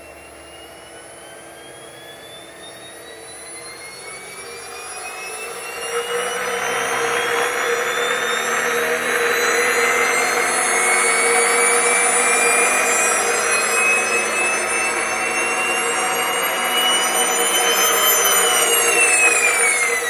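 Nissan Leaf electric drive motor and gearbox spinning up toward about 8,000 RPM: a high whine climbs steadily in pitch. About six seconds in, a loud rattling noise grows in, which the owners place inside the motor and gearbox and cannot explain. The whine drops sharply in pitch at the very end.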